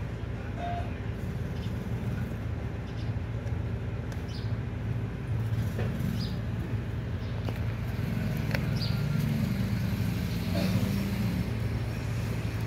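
Puppies eating together from a plastic bowl, with scattered small clicks of chewing and muzzles knocking the bowl, over a steady low motor-like hum that swells a little in the second half.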